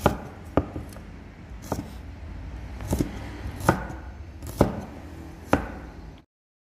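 Kitchen knife chopping shallots on a wooden cutting board: about six separate sharp knocks of the blade on the board, irregularly spaced, before the sound cuts out suddenly near the end.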